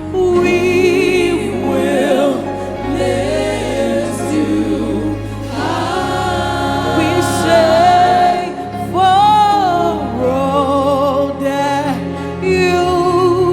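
Live gospel worship music: sung voices with wide vibrato, holding and sliding notes, over instrumental backing with a steady bass underneath.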